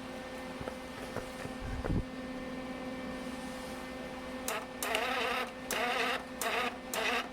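Lincoln Electric MIG Pak 140 welder humming steadily while switched on, with a low thump about two seconds in. From about four and a half seconds in, its wire-feed motor buzzes in a series of short spurts, feeding welding wire up through the gun liner.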